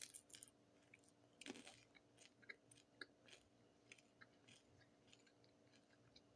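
Faint, close chewing and crunching of a warmed-up samosa: irregular small crunches and clicks of the pastry, with a louder crunching bite about a second and a half in.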